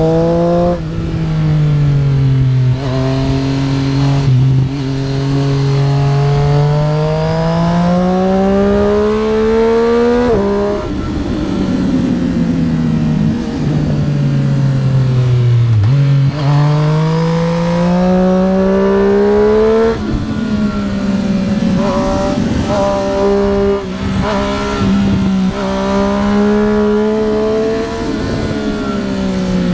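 Triumph Street Triple RS three-cylinder motorcycle engine under hard acceleration, its pitch climbing steadily and dropping sharply at each upshift. About ten seconds in it comes off the throttle and runs rough and uneven for several seconds before pulling hard again, with more throttle changes and another drop near the end.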